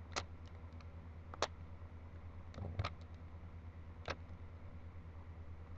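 Rubik's Cube layers being turned by hand, each turn giving a sharp plastic clack, about five at irregular intervals of a second or so, over a steady low hum.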